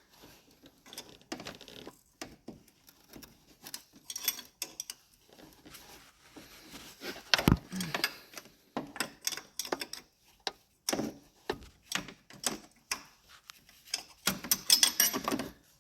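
Hand ratchet clicking in short irregular runs and metal tools tapping and clinking against the engine while bolts are worked loose, with a sharper knock about seven and a half seconds in.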